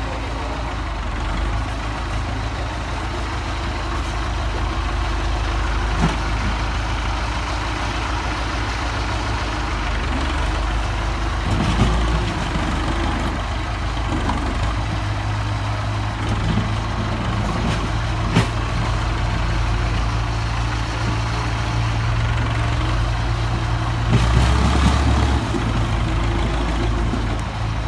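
Tractor engine running steadily under load, with a couple of sharp clicks and a louder surge near the end.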